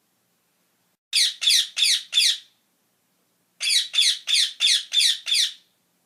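Rose-ringed parakeet calls, each a short screech falling in pitch, in two quick runs: four calls about a second in, then six more in the second half.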